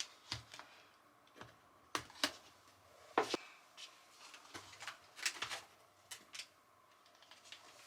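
Scattered light clicks and taps, about a dozen, irregularly spaced, in a small quiet room.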